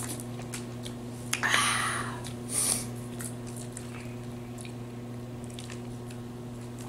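Close-up eating: chewing and picking at boiled crawfish and crab legs, with small clicks of shells and one short louder noise about a second and a half in, over a steady low hum.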